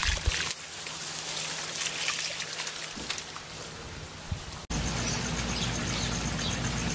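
Dirty wastewater from a backwashed pond pressure filter pouring out of a corrugated waste hose onto the ground, a steady splashing trickle. It cuts off abruptly a little past halfway and a steady low rumble takes over.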